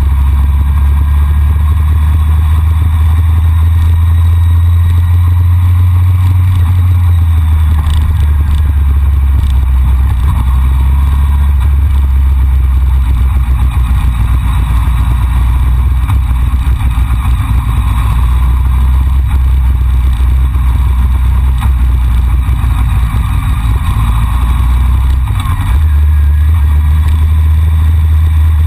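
Steady rush of wind buffeting a camera microphone on a moving Honda CBR600F4i sport bike, a heavy low rumble, with the bike's engine running steadily beneath it.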